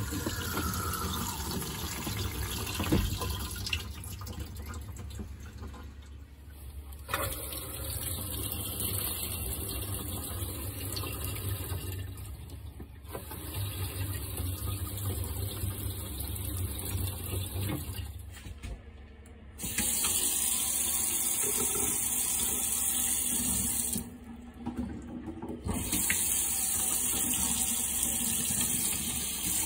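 Thetford C220 electric RV toilet flushing, followed by an RV shower hose running, then a kitchen faucet running into a stainless steel sink, with a short break about three quarters of the way through. A low steady hum sits under the water throughout.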